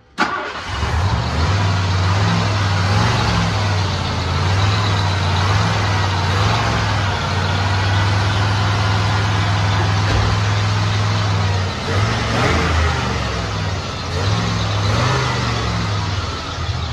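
Ford 302 V8 running at idle, its revs swelling and dropping back a few times as the throttle and distributor are worked by hand.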